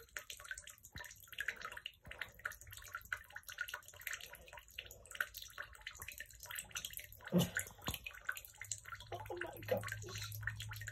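Light, irregular splashes and drips of bathwater as a cat paws at and laps from the tub, with one louder knock about seven seconds in.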